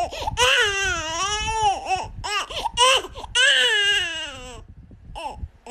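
A goat bleating over and over: about six wavering cries, two of them long, the last ones short and fainter.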